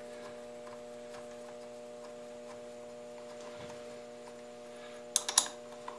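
Metal clicks and clinks of a wrench on the T-bolts clamping a rotary table to a milling machine table, a few sharp ones about five seconds in, over a steady electrical hum.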